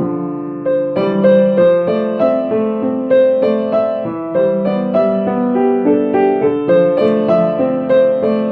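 Solo piano music: a melody in evenly paced struck notes, each fading, over lower accompanying notes.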